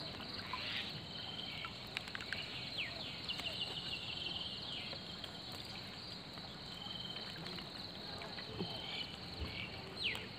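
Steady high-pitched insect chorus, with short repeated calls and a few falling chirps over it.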